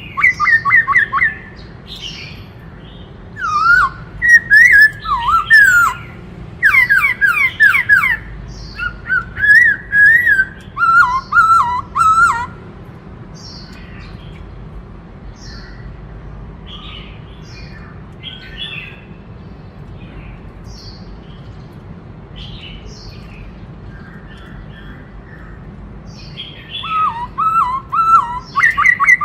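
Black-throated laughingthrush singing: loud, quickly changing whistled phrases for about the first twelve seconds, then softer scattered calls, with loud phrases returning near the end.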